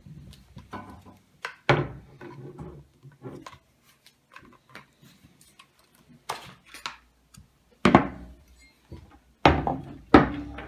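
Parts of a Browning A-5 shotgun being handled as the barrel and forend are taken off: a series of clicks and knocks of metal and wood, the loudest about two seconds in and several more near the end.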